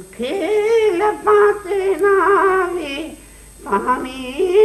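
Background music: a wavering, singing-like melody line in two phrases, with a short break about three seconds in.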